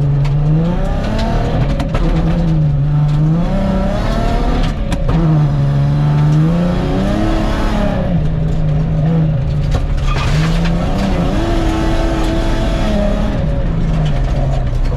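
Nissan 350Z drift car's engine being driven hard on a gravel rally stage, its note repeatedly climbing and dropping back through gear changes and lifts, over steady tyre and gravel noise.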